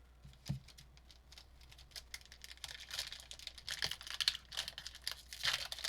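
Trading cards being handled: quick, light clicks and rustling of card stock and pack wrapper, sparse at first and busier from about two seconds in.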